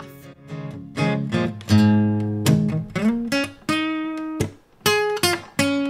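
Background music: an acoustic guitar playing single plucked notes, each left to ring out.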